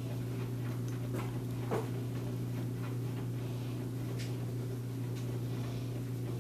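A steady low hum of room or equipment noise, with a few faint taps and clicks scattered through it.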